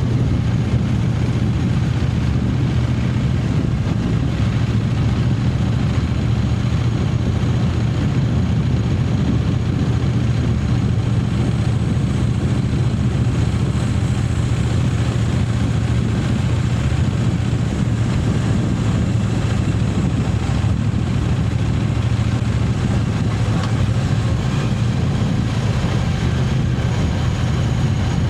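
Triumph Speed Twin 900's parallel-twin engine running at a steady pitch, without revving up or down.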